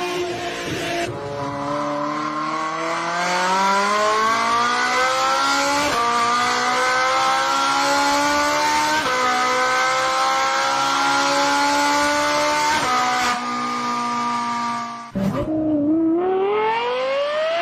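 Racing car engine accelerating hard through the gears: the engine note climbs steadily, dropping slightly at each of three upshifts a few seconds apart. Near the end the sound cuts out briefly and a fresh run of revving climbs again.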